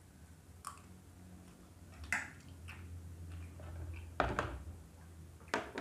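A spoon tapping and scraping on a plate, then a plastic food container being grabbed and handled: a few scattered clicks and knocks, the loudest about four seconds in and just before the end.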